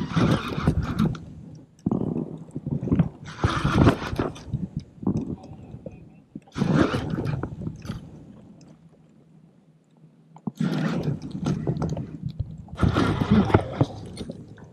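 Heavy, effortful breathing: hard breaths in and out every second or two, with a quieter lull in the middle. This is an angler winded from reeling in a big king salmon.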